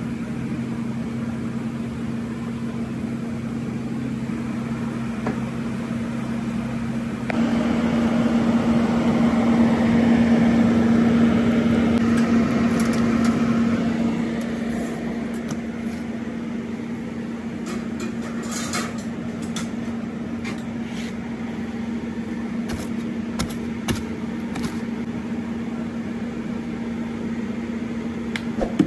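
Steady hum of commercial pizza-kitchen machinery. It grows louder with a rushing sound for several seconds about a quarter of the way in. In the second half, scattered light clicks and taps.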